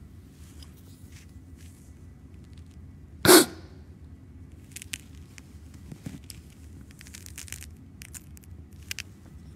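A man's single short, loud vocal outburst about three seconds in, a burst of breath through the nose and mouth, followed by faint short breaths and small clicks while he holds his hand over his face.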